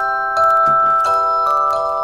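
Background music of bell-like mallet tones, glockenspiel-style chords changing every half second or so.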